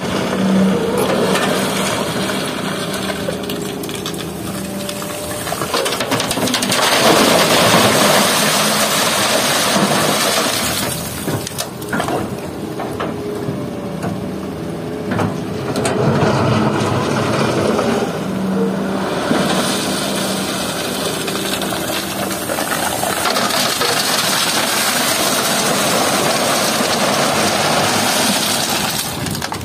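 Hitachi hydraulic excavator's diesel engine running, rising to a louder, rougher note under load as the arm digs and swings, with river stones scraping and clattering in the bucket. Near the end a bucketful of wet stones pours into a dump truck's steel bed.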